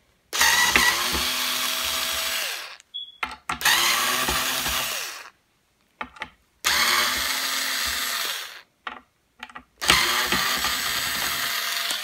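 Cordless power screwdriver backing screws out of the hinge brackets of a toilet seat lid. It runs in four bursts of about two seconds each, with short pauses between.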